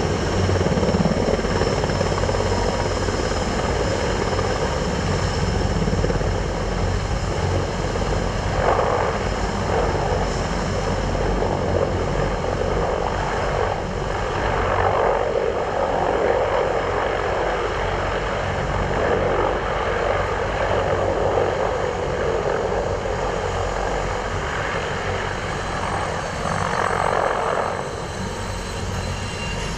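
Mil Mi-26 heavy-lift helicopter running: a steady low rotor drone under a thin high turbine whine, swelling and easing a few times.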